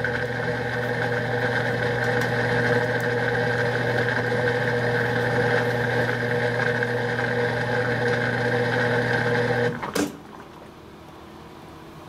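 Brastemp 16 kg washing machine's drain pump humming steadily, then shutting off with a click about ten seconds in: the end of the drain before the machine fills for its first rinse.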